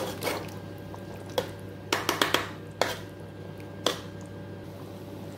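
Metal spoon clinking and scraping against a metal pot while stirring a thick creamy sauce: a string of sharp clinks, several close together about two seconds in, over a steady low hum.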